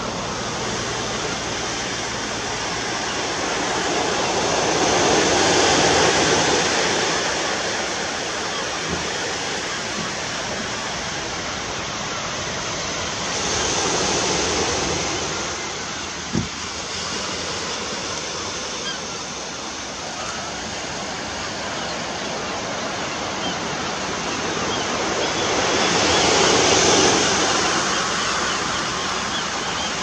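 Small waves breaking and washing up a sand and shingle beach, a steady surf hiss that swells into a louder rush three times.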